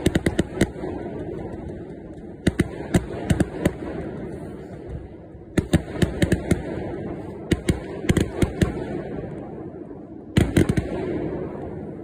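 Fireworks bursting overhead in clusters of sharp bangs and crackles, five volleys a second or two apart, each followed by a rolling echo.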